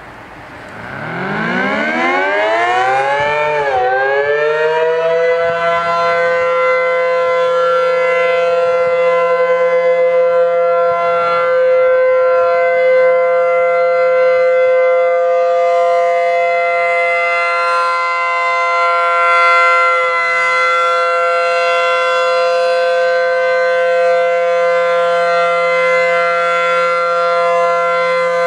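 ACA P-15 outdoor warning siren winding up for a test alert, its pitch rising. About four seconds in it falters with a brief drop in pitch, a stall the recorder puts down to snow packed in the siren's intake. It then climbs again and settles into a loud, steady tone.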